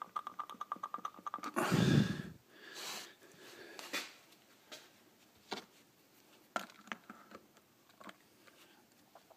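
A fast run of small clicks, about ten a second, as a pin works the plunger of an SR20DE hydraulic lifter sitting in a bottle of oil, forcing the old oil out. It breaks off into one short, louder handling noise, followed by a few faint scattered taps.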